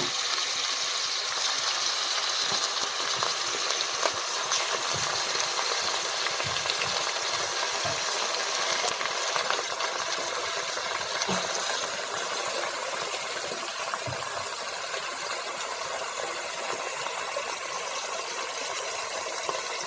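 Mutton pieces frying with onions in a pot, a steady sizzling hiss with a few faint ticks.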